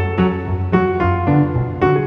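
Background music led by piano, a run of single struck notes every few tenths of a second over a steady low bass.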